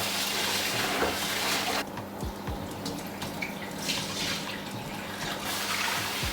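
Kitchen tap running water over rice as it is washed in the sink. The flow eases about two seconds in and picks up again near the end.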